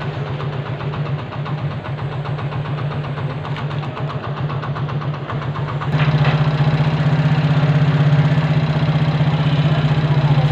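Small single-cylinder motorcycle engine idling steadily, getting louder about six seconds in.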